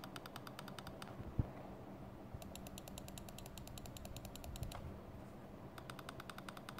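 Gaming mouse scroll wheel turned in three spells, its notches giving faint, even ticks about ten to twelve a second, with one soft thump about a second and a half in.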